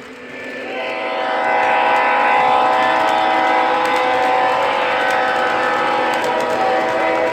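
An MTH O-gauge model locomotive's onboard sound system sounding a long multi-chime horn blast through its small speaker. The chord comes in under a second in and holds steady, loud and unbroken, for about six and a half seconds.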